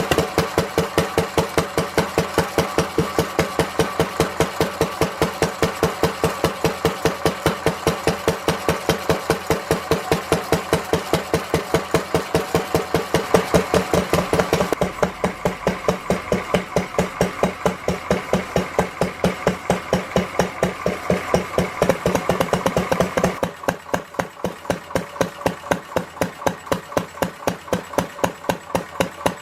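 Lister D 1.5 hp single-cylinder stationary engine running steadily after its repair, with an even beat of about five strokes a second. The sound gets noticeably quieter near the end.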